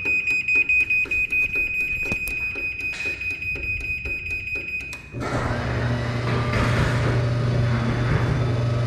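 Garage door opener beeping a steady high tone for about five seconds after its travel limits are set. Then its motor starts with a steady hum and drives the door open on its own, running its automatic force-setting cycle.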